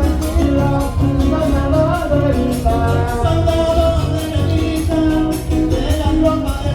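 Trío huasteco playing a huapango: violin carrying a gliding melody over the steady strummed rhythm of the jarana huasteca and the quinta huapanguera.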